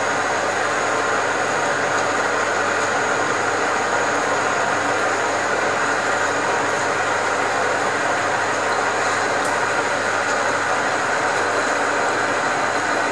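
Metal lathe running under a boring cut: a boring bar feeding into the bore of a turned metal boss. A steady machine hum and cutting noise at an even level throughout.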